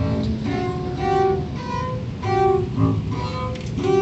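Saxophone and bowed double bass improvising together in a string of short, separate held notes.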